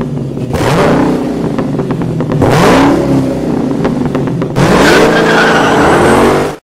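Car engine idling and revving three times, the pitch climbing with each rev, then cutting off suddenly near the end.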